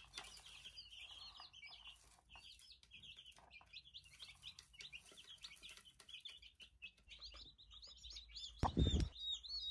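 Baby chicks peeping, many short high cheeps overlapping with no break. A dull low thump near the end.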